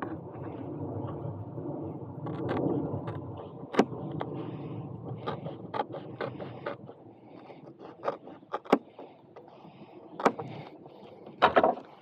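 Scattered sharp clicks and taps from hands handling and pressing 3D-printed pads and Velcro onto an electric unicycle's shell. Under them is a steady low rumble that fades out about halfway through.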